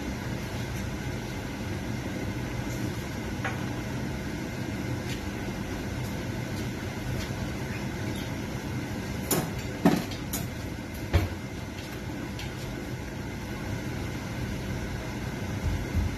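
A wide pot of creamy chicken sopas at a boil: a steady bubbling hiss over a low hum, with scattered small pops. A few sharper clicks and knocks come about nine to eleven seconds in, and there is a low thump near the end.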